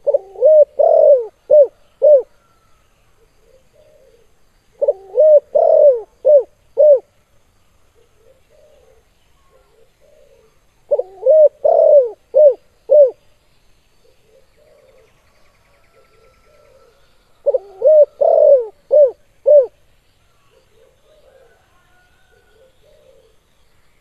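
Spotted dove (tekukur) singing its cooing song of the 'kuk 2' type: four phrases, about one every six seconds, each a run of coos ending in two short 'kuk' notes. Fainter cooing sounds between the phrases.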